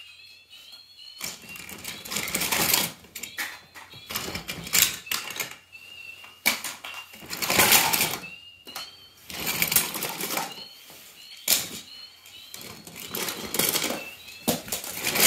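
Small toy cars clattering against one another as they are handled and set in a line, in irregular bursts of rattling.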